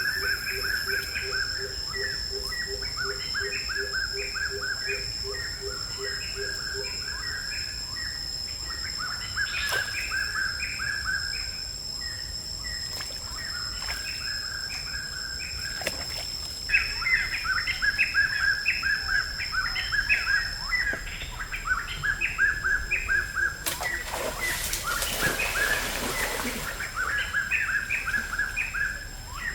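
Birds chirping in quick, repeated runs of short notes, with a low pulsing call beneath them for the first seven seconds. A brief noisy swish comes about 24 seconds in.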